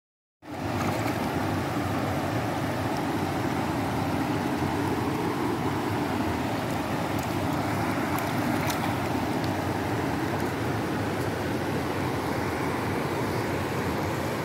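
Steady rush of a shallow river flowing over stones and a low weir, starting abruptly about half a second in.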